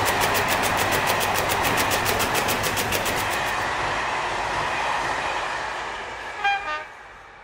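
Rapid, even clicking of a split-flap display animation as its flaps spin, stopping about three and a half seconds in. It sits over a steady rushing noise that then fades out, with a brief pitched toot near the end.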